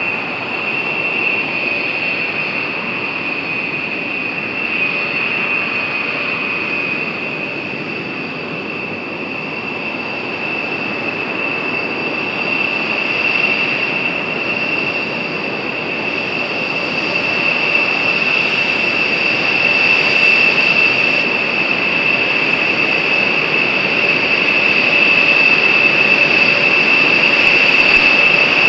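Rockwell B-1B Lancer's General Electric F101 turbofan engines running at taxi power: a steady high-pitched whine over a rushing jet rumble, growing louder through the second half as the bomber rolls past.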